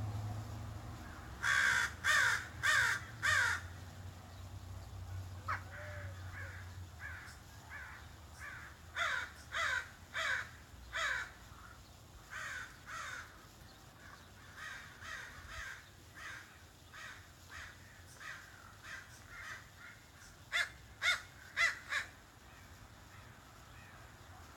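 A crow cawing: four loud caws in quick succession near the start, a long run of softer, shorter calls through the middle, then four more loud caws near the end.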